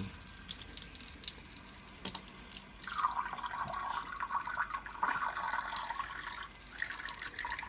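Bathroom washbasin tap running, its stream splashing into the sink; from about three seconds in the water pours into a clear cup held under the stream, filling it.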